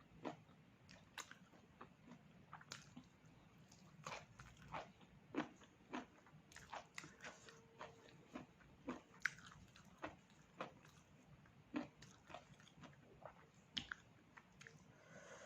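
A person chewing and biting pork close to the microphone: soft, irregular mouth clicks and smacks, a few each second.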